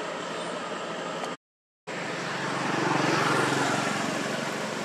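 Steady outdoor hiss that drops out to silence for half a second about a second and a half in. Then a motor vehicle's engine swells up and fades away as it passes, loudest about three seconds in.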